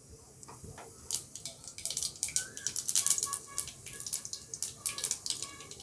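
Whole cumin seeds sputtering and crackling in hot oil: rapid small pops start about a second in and come thicker from about two seconds on.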